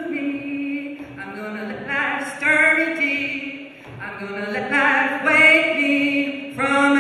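Unaccompanied call-and-response singing: a woman's voice leading sung phrases into a microphone, with a group of voices singing back.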